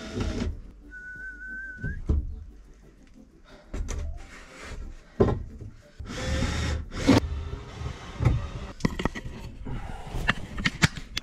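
Knocks, thuds and clatter of softwood timber beams and tools being handled while a bed frame is fixed in place, with a brief whistled note about a second in. Rustling handling noise near the end as the camera is picked up.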